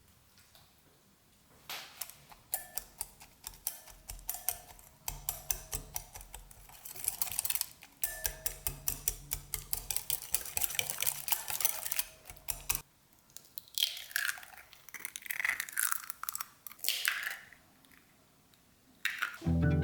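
Kitchen work with dishes and utensils: rapid clicking and tapping against a bowl or plate, densest in the middle, followed by a few short swishing sounds near the end.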